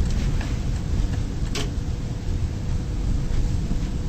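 A car running, heard from inside the cabin: a steady low rumble with a faint steady tone over it, and a single click about one and a half seconds in.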